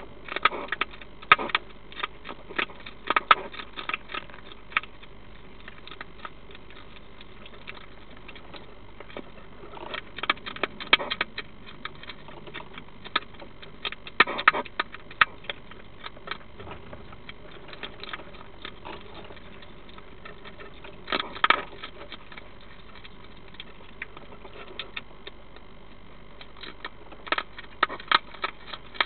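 European hedgehog eating, crunching its food in irregular bursts of sharp crunches with pauses of a few seconds between.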